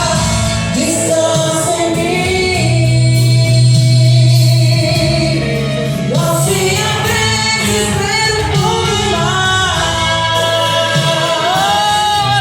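Gospel worship music: voices singing over band accompaniment with a sustained bass.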